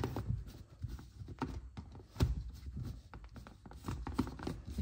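Plastic blade base being twisted onto a personal blender cup: a run of irregular clicks and knocks of hard plastic against plastic, the loudest about two seconds in.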